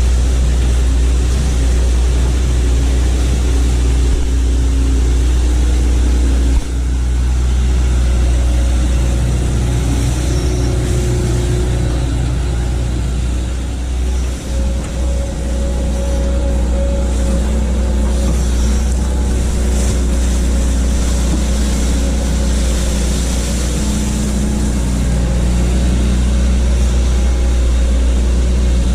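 Hitachi excavator's diesel engine running steadily with a heavy low rumble, its note shifting now and then as the machine works, with a brief dip in level about halfway.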